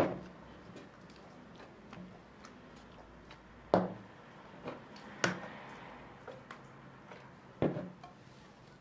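Glass jars with metal screw lids being set down on a wooden tabletop after shaking: a sharp knock at the very start, then three more spaced over the following seconds, with a few faint clicks between.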